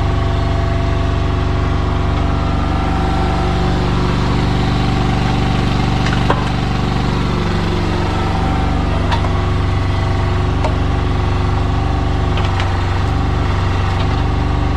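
Yanmar excavator's diesel engine running steadily under hydraulic load while digging, its note dipping and shifting a little twice as the load changes, with a few sharp knocks from the bucket in hard ground.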